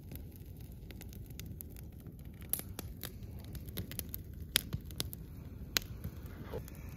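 Wood fire crackling, with irregular sharp pops, a few of them louder.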